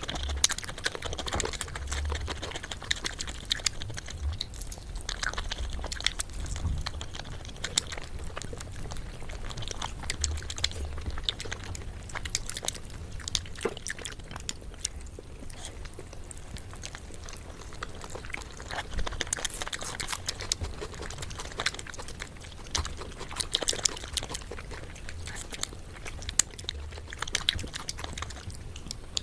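Close-miked ASMR eating sounds: chewing and biting into spicy whole chicken, with frequent small clicks and ticks.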